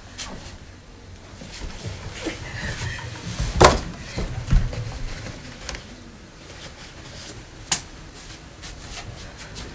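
Scattered knocks and thumps in a small room, the loudest about three and a half seconds in, another a second later, and a sharp click near the end.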